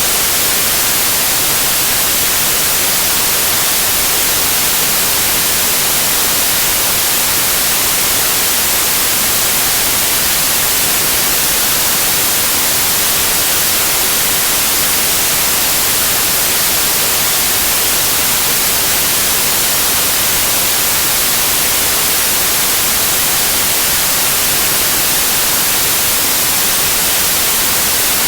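Television static: a steady, even white-noise hiss, strongest in the treble.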